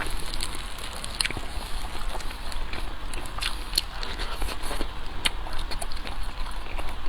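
Close-miked eating: chewing and crunching with scattered sharp clicks, over a steady low hum.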